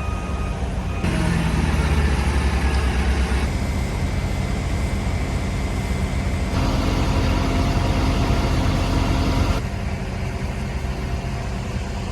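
Engines of heavy construction machinery running steadily in a low rumble, the sound shifting abruptly every few seconds.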